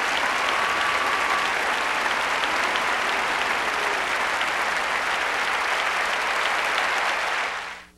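Audience applauding steadily; the applause fades out just before the end.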